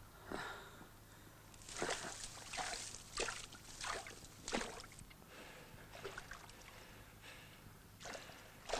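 Water sloshing and splashing in a string of irregular strokes, about one every half second to a second, fainter in the middle and picking up again near the end.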